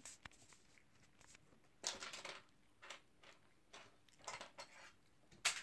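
A cat chewing a piece of croissant: faint, short crackly bursts of chewing, the loudest about two seconds in.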